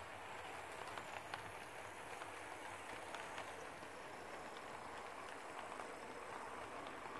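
Model train running past: the diesel locomotive and its freight cars rolling along the track in a steady hiss, with a few faint clicks from the wheels.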